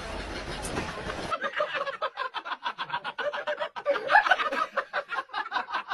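Steady background noise for about the first second, then a person laughing in a quick run of short repeated chuckles.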